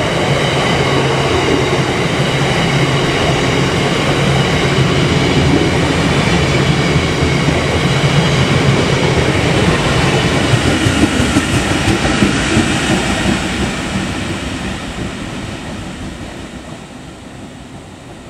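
Freight train of empty bogie tank wagons rolling past at speed, with the rear Class 66 diesel locomotive passing about ten seconds in. After that the train's noise fades steadily away.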